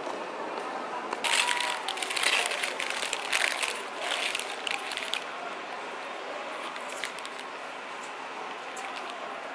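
Paper food wrapper crinkling and rustling as it is handled, starting about a second in and lasting about four seconds, then only steady room noise.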